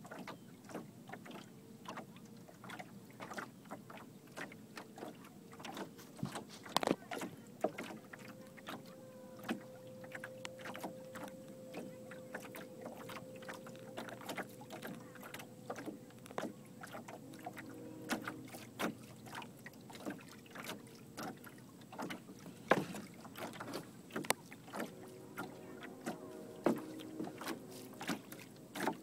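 Small waves lapping and slapping against the hull of a sailing canoe moving across a lake, in many irregular splashes and knocks over a steady watery hiss.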